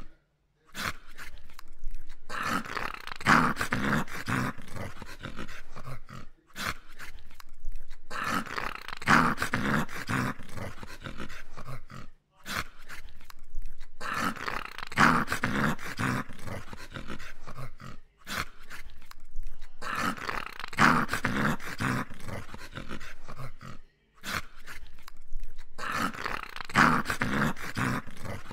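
A dog's rough, growly grumbling. It comes in the same pattern about every six seconds, each spell of a few seconds broken by a brief silence.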